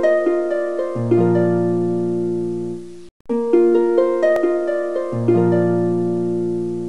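Intro music: a short tune of plucked-string notes, harp-like, that each ring and fade. The same phrase plays twice, with a brief gap about three seconds in.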